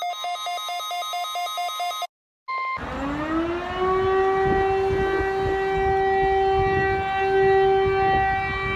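An electronic alert tone sounds and cuts off about two seconds in; after a short gap and a brief beep, a warning siren winds up in pitch and then holds one steady note.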